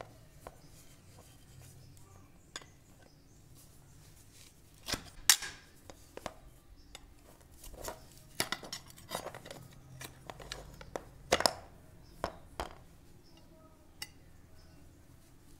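Irregular knocks and clinks of metal and wood as the old wooden handle scales are prised off a rusty meat cleaver's tang with a flat chisel; the loudest knocks come about five and eleven seconds in.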